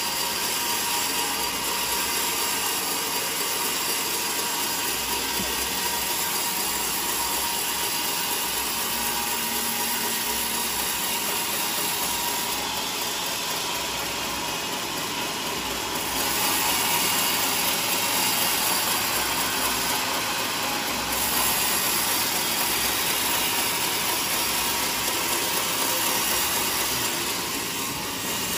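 Sawmill band saw running and cutting through a block of teak: a steady, even noise of blade and motor that gets louder a little past halfway.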